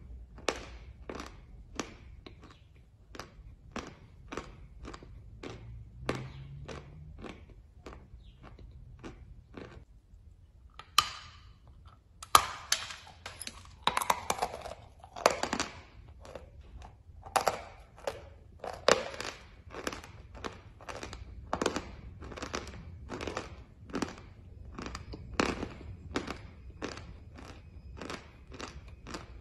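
Close-up chewing of a chalk tile: crisp crunching strokes at about two a second. About halfway through comes a louder, denser run of crunches, then the steady chewing resumes.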